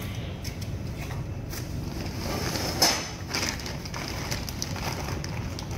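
Scattered small clicks and rustles of cables and a hand tool being handled at radar equipment wiring, over a steady low hum, with one sharper click about three seconds in.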